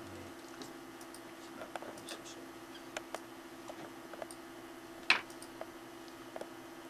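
Scattered faint clicks and taps, with one sharper click about five seconds in, over a steady low hum.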